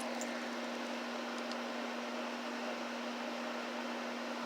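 Steady background hum with an even hiss, like a fan or air conditioner running; a faint click just after the start.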